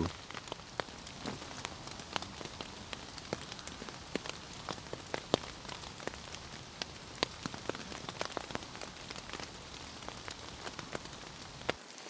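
Steady rain falling in woodland, with many separate drops landing in sharp, irregular ticks over an even hiss.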